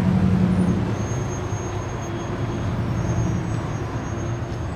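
Street traffic: a heavy vehicle's engine rumbling low and slowly fading away.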